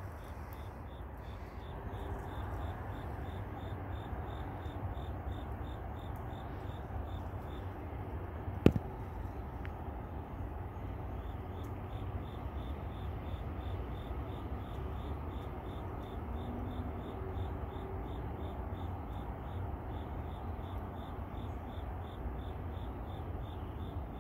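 Crickets chirping steadily in an even rhythm of about two to three chirps a second, over a low, steady rumble. A single sharp click about nine seconds in.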